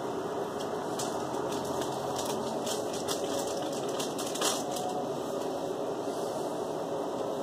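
Small clicks and rustles of a hand taking cherries from a plastic tub and eating them, the sharpest click about four and a half seconds in, over a steady background hiss.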